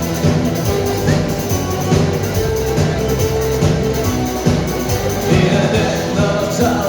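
Live guitar band playing a rock song: electric guitars over a steady drum beat.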